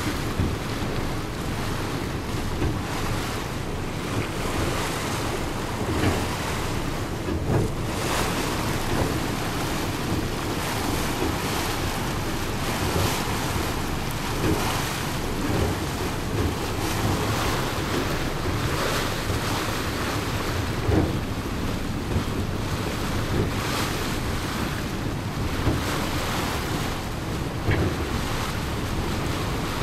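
Small ferry under way: water rushing and splashing along its hull, with wind blowing on the microphone and now and then a louder slap of water.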